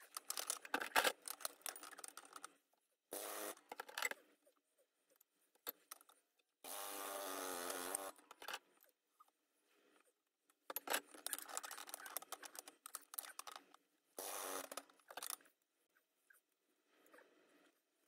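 Metal handling noises: knocks, scrapes and clatter as a sewing machine's metal body is set on and shifted about the steel bed of a shop press. They come in several short bouts with pauses between, and a longer, steadier scraping noise about seven seconds in.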